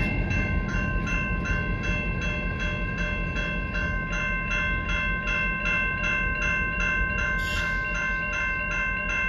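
Railroad grade-crossing bell ringing in rapid, evenly spaced strokes. At first it rings over the low rumble of the freight train's last car rolling past, and it keeps ringing while the crossing gates lift.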